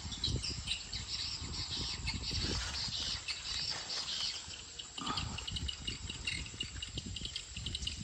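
A flock of swiftlets twittering with dense, rapid high chirps. A low, irregular rumble of wind buffets the microphone underneath, strongest near the start and again about five seconds in.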